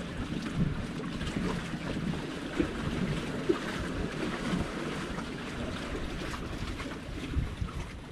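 Wind buffeting the microphone, with waves lapping.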